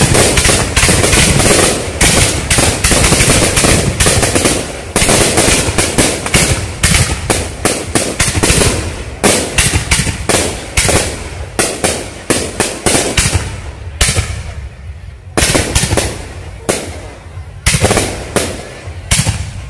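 Fireworks display: aerial shells bursting in rapid, overlapping bangs and crackles. The bangs thin out in the second half, with a short lull about fourteen seconds in.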